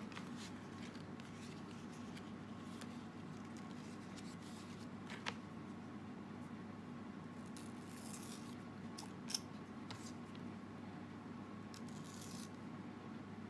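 Scissors snipping banana leaf: a few quiet cuts and leaf rustles, with two sharp clicks about five and nine seconds in, over a steady low hum.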